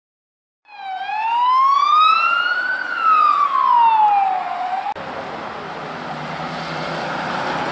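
Police car siren giving one slow wail, its pitch rising and then falling back. It cuts off suddenly about five seconds in, giving way to steady street noise.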